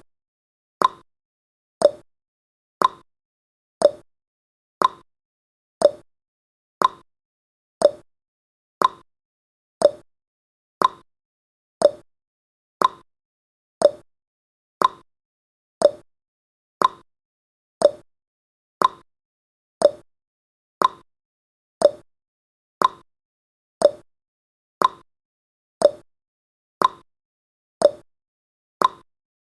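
Countdown timer's ticking sound effect: a short, sharp tick once every second, steady and evenly spaced.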